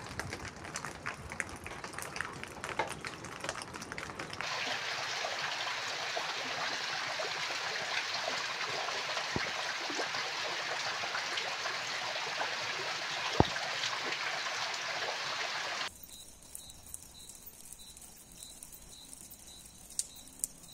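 Rain in three stretches: first a patter of drops with scattered ticks, then, about four seconds in, a louder, steady downpour of rain streaming off a roof's edge. About 16 seconds in it drops to a much quieter background with a faint high chirp repeating about twice a second.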